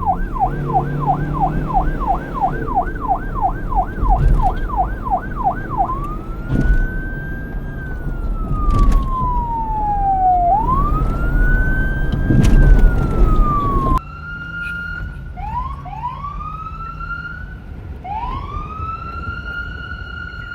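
Police car siren switching from a fast yelp to a slow rising and falling wail, over a low rumble. About 14 s in, a sudden cut to a quieter siren that gives several short rising whoops, then rises and holds one steady tone.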